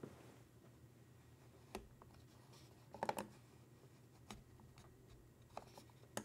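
Faint room tone with a handful of scattered light clicks, a small cluster of them about three seconds in and the sharpest right at the end.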